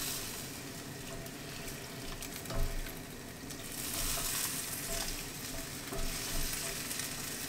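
Stir-fried noodles and vegetables with sauce sizzling in a hot wok while a silicone spatula stirs and tosses them, with one louder knock about two and a half seconds in.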